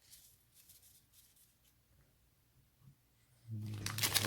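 Faint rustling of trading cards being handled, then about three and a half seconds in, the plastic wrapper of a baseball card pack starts crinkling loudly as it is picked up to be opened.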